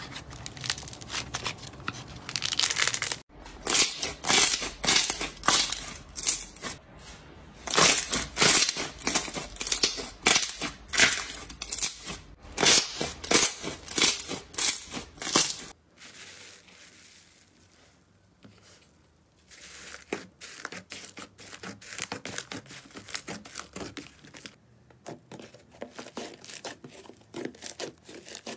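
Hands squeezing, pressing and stretching slime, including fluffy cloud slime and a glossy clear slime, with rapid crackling and popping squishes. The crackles go quieter for a few seconds about two-thirds of the way through, then pick up again.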